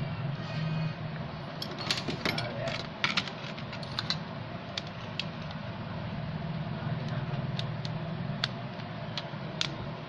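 A smartphone handled on a workbench: a quick run of small clicks and taps in the first few seconds, then single clicks every second or so, over a low steady hum.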